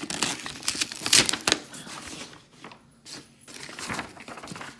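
Paper packaging crinkling and rustling as items are handled and pulled out of a box, busiest in the first half and in scattered bits later.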